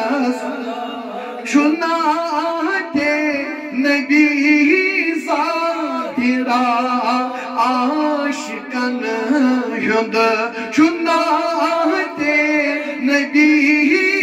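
Two men singing a Kashmiri naat, a devotional song in praise of the Prophet, in long ornamented phrases with brief breaths between them.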